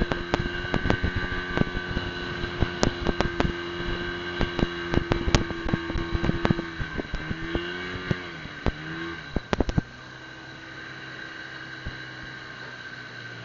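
Small boat's engine running hard with a steady note, with many sharp knocks over it; about ten seconds in the engine is throttled back and settles to a lower, quieter idle.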